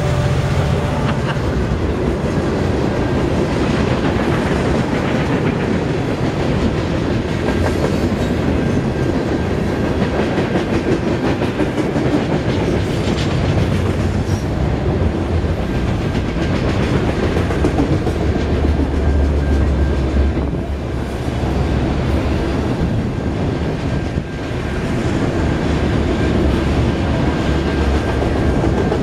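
A freight train's cars rolling steadily past on the rails, with wheels clacking over the joints.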